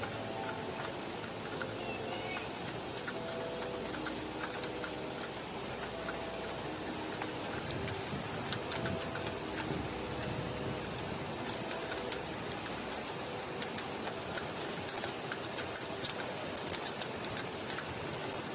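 Steady rush of floodwater pouring through a street, heard as an even noise. Scattered short faint tones and clicks sit over it.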